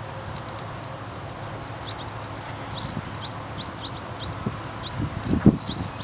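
Barn swallows chirping: short, high calls, several a second, starting about two seconds in. Under them is a steady low rumble, and a brief low thump near the end is the loudest sound.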